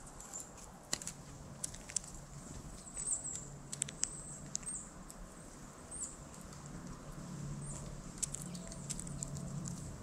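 Scattered light clicks and ticks of seed being picked at and shifted in a mesh platform feeder as a red-bellied woodpecker feeds, irregular and several a second.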